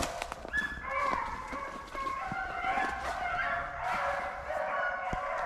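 Pack of rabbit hounds baying together as they run a rabbit's trail, several voices overlapping into a continuous chorus. A few light clicks near the end.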